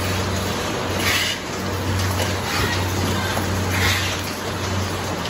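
Egg carton labeling machine running: a steady hum from its conveyor's geared motor over an even mechanical hiss, with a brief hissing swell about a second in and another near four seconds.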